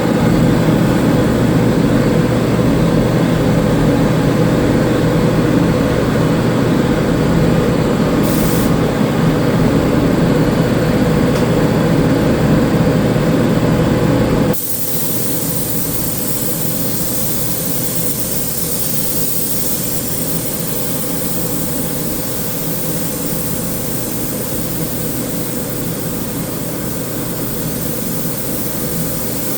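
Steady machine hum with air hiss, typical of spray-painting equipment running. About halfway through it cuts abruptly to a quieter, hissier run.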